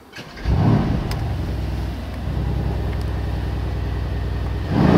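Mercedes-AMG GLC 63 S's 4.0-litre twin-turbo V8 starting up, heard from inside the cabin: a loud flare of revs about half a second in that settles into a steady idle, then a sharp rev blip near the end.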